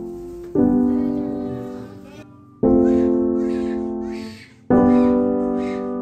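Background piano music: soft sustained chords, a new one struck about every two seconds and each slowly fading away.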